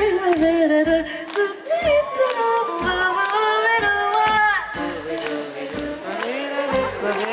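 Female vocalist scat singing live into a microphone: quick wordless runs whose pitch slides up and down.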